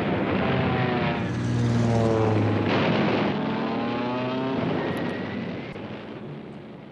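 Propeller aeroplane engines running as planes fly past, the pitch falling with each pass, several passes in a row.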